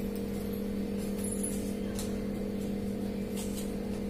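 Steady low background hum running evenly throughout, with a few faint light clicks as a spoon scoops from a small plastic spice jar.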